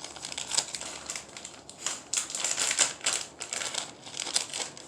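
Plastic lure packaging crinkling and rustling as it is handled, in irregular bursts of crackle.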